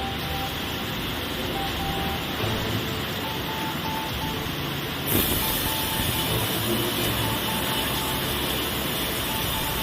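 Sawmill machinery running with a steady din, over a short high beep that repeats on and off. About five seconds in, a sudden knock comes and the machinery gets louder.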